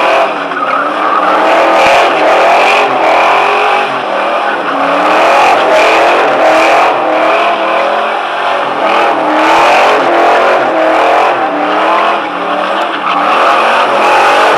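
A 2003 Ford Mustang GT's 4.6-litre V8 is held at high revs while the rear tyres spin and squeal through continuous donuts. The engine note wavers up and down throughout, loud and unbroken.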